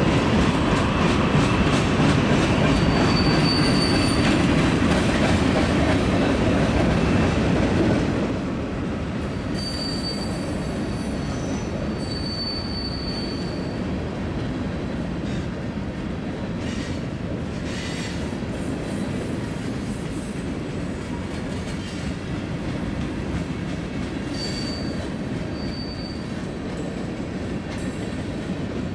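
HO-scale model freight train rolling along the track: a steady rumble of wheels on rail, louder for about the first eight seconds and then softer, with short high wheel squeals now and then.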